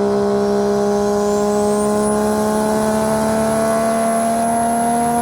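Turbocharged car engine pulling steadily, its note rising slowly, with a high turbo whistle that climbs in pitch over the first two seconds and then holds steady.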